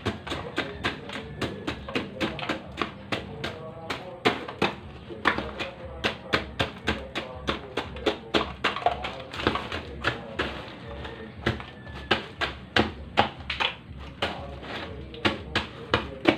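Ice pick stabbing and chipping a block of ice with sharp knocks, about three a second.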